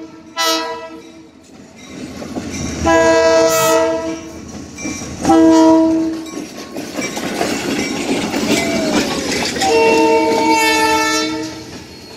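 Locomotive 319's air horn sounding a series of blasts as the train passes close by. One blast ends about a second in, two more follow, and a last one of about two seconds comes near the end. Between the blasts, the wheels rumble and clatter over the rails.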